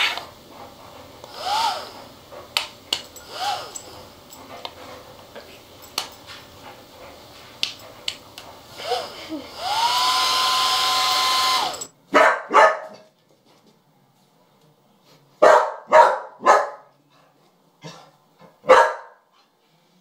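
Hand-held hair dryer blowing steadily, with a cat's short meows over it and a louder stretch with a steady whine near its end. It then cuts off and a dog barks in short sharp bursts: two, then three, then a faint one and a loud one.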